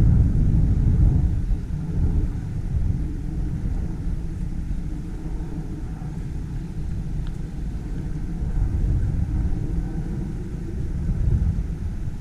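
Outdoor ambience dominated by a low, fluctuating rumble.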